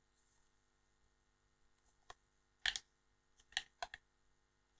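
Near silence broken by several short, sharp clicks in the second half: one faint click, then a louder close pair, then three more over the next second or so.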